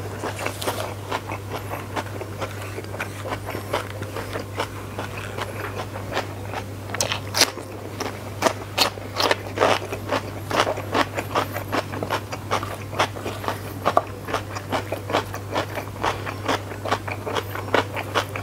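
Close-miked eating by hand: chewing and mouth clicks, and fingers scraping and pressing rice with sambal on a banana leaf. It comes as a rapid run of clicks that grows denser and louder about seven seconds in, over a steady low hum.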